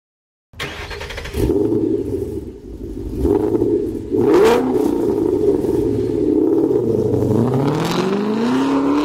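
Ford Mustang V8 exhaust with the engine revving: the pitch rises and falls, dips about seven seconds in, then climbs steadily as it accelerates.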